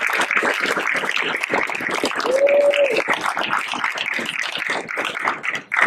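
Audience clapping steadily, with one brief held shout from the crowd about two and a half seconds in.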